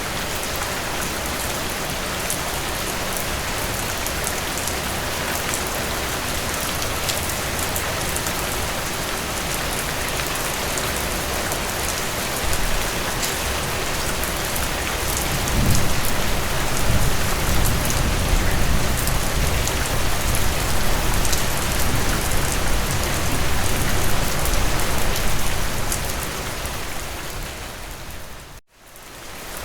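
Steady rain with the ticks of individual drops. From about halfway through, a low rumble swells beneath it. Near the end the sound dips out for a moment and fades back in.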